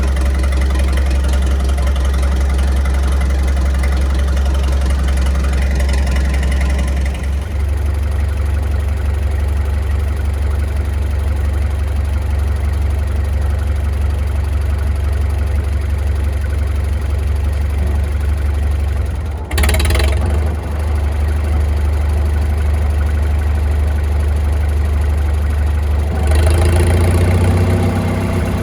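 Farmall tractor engine running steadily. The rougher, higher noise over it falls away about seven seconds in, a brief sharp noise cuts across it about two-thirds of the way through, and the engine grows louder near the end.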